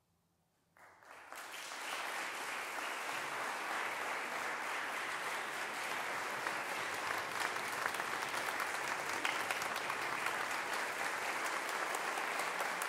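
Audience applause breaking out suddenly about a second in, after a brief silence, then holding steady.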